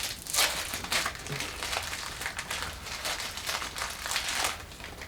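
Fortune cookie being crushed by hand in its plastic wrapper: a run of crinkling and crackling that stops near the end.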